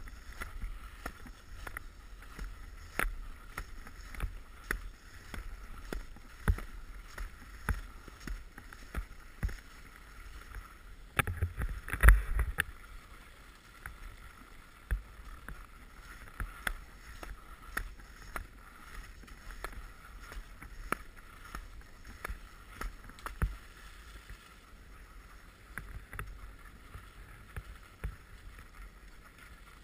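Skis sliding and scraping over snow, heard through a pole-mounted action camera, with frequent small knocks and clicks and one louder bump about twelve seconds in.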